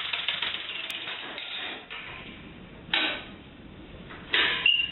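Home-built compressed-air engine on a riding-mower vehicle, running off a 300 psi air tank: a fast train of clicking exhaust pulses that fades out about two seconds in. Two short bursts follow near three and four and a half seconds as the air is opened again in short spurts.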